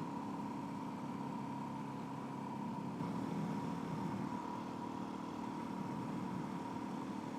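A 2008 Suzuki DR-Z400S's single-cylinder four-stroke engine running at an even, unchanging pitch.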